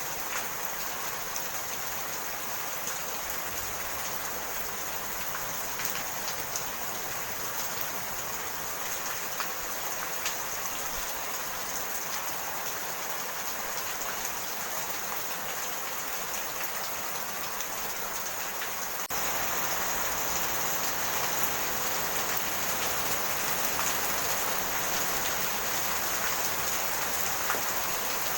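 Steady rain falling, with scattered drops ticking through the even hiss. About two-thirds of the way in the sound abruptly becomes louder and fuller.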